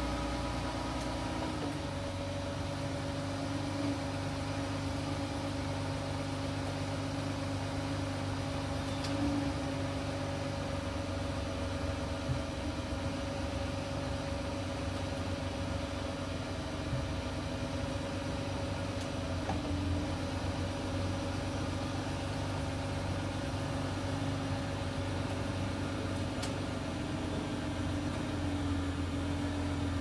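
2013 Jeep Grand Cherokee engine idling steadily, heard from behind the vehicle at the tailpipe.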